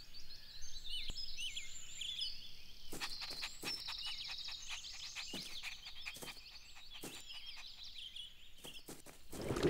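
Quiet garden ambience of birds chirping and trilling high up, with a few scattered clicks.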